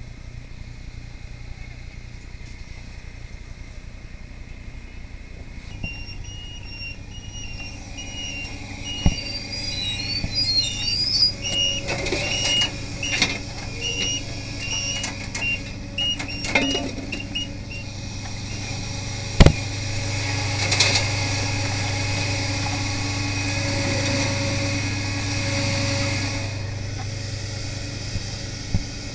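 Fire truck engine running with a steady low hum. For several seconds a repeating electronic beep sounds over it. Then come a series of knocks and clanks, one sharp and loud about two-thirds of the way through.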